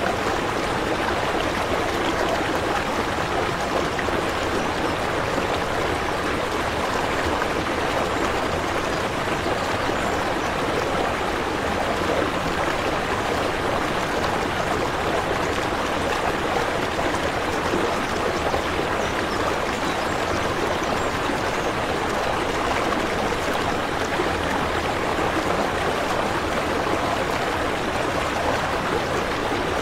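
Aquarium water flow, a steady even rush and trickle of running water with no change throughout.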